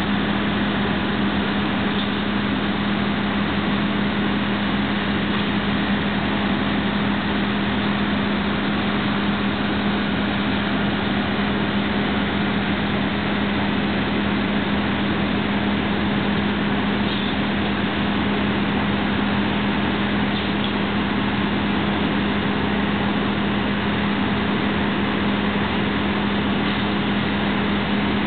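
Construction-site machinery running, a steady engine drone with a constant low hum over an even rushing noise that does not change.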